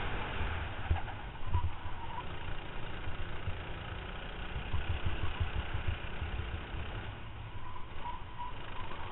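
Racing kart engine running at speed, heard from an onboard camera, with heavy wind buffeting on the microphone.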